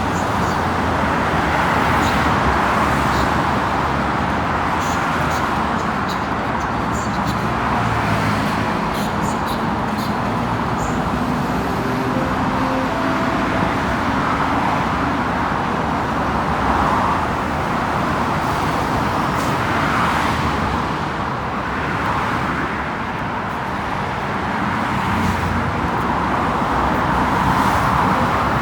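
Steady road traffic noise: cars and other vehicles running along a city street, with a constant rumble and tyre hiss.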